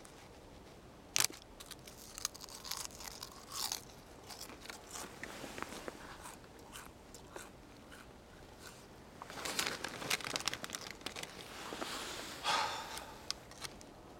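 Crunching and rustling of packed snow and stiff winter clothing under people lying prone, with scattered sharp clicks; the loudest is a single sharp click about a second in, and the crunching comes thicker in a stretch near the end.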